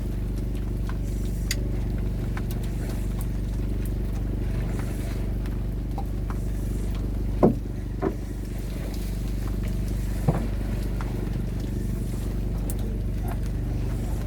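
A fishing boat's engine running steadily at a low, even hum, with three short knocks on the boat about halfway through.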